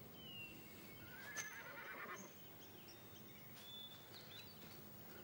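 A horse whinnying faintly: one wavering call about a second in, lasting about a second, over a quiet background.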